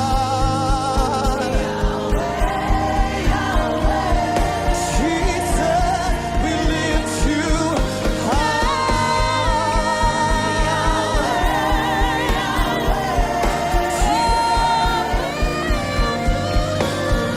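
Live gospel worship music with a steady beat of about two drum strokes a second, under sustained wordless singing with wide vibrato.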